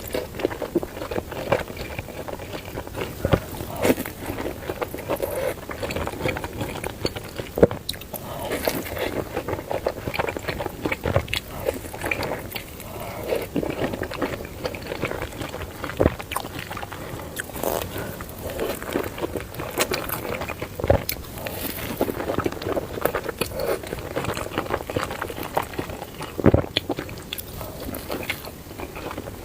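Close-miked eating of spicy noodles: continuous chewing and biting with many irregular small clicks and wet mouth sounds.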